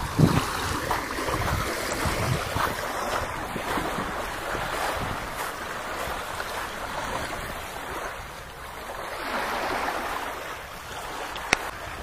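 Small waves lapping at a sandy, gritty river shore, with wind buffeting the microphone and footsteps on the coarse sand. A single sharp click near the end.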